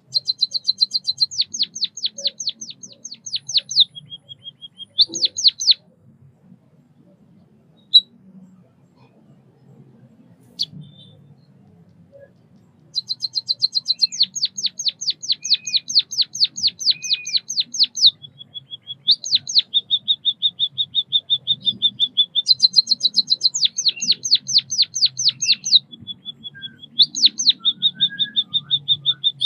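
White-headed munia singing: fast trains of high clicking notes, about four a second, alternating with short buzzy trills. The song comes in two bouts, a short one at the start and a long one from about halfway, with a lull of several seconds between them broken by a couple of single clicks.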